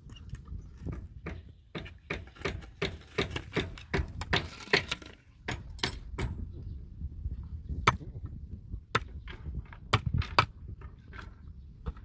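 Hammer knocking on an old wooden board: irregular sharp taps and knocks of metal on wood, some with a faint metallic click, over a low steady rumble.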